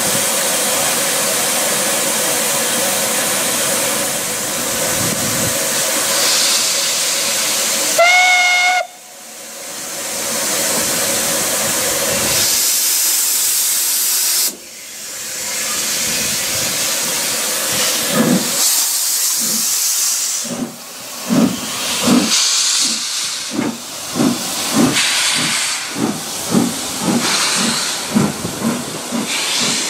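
Somerset & Dorset Joint Railway 7F 2-8-0 steam locomotive No. 53808 hissing steam while standing, then giving one short blast on its whistle about eight seconds in. After more hissing it sets off: its exhaust beats start slow and quicken as it pulls away with its train.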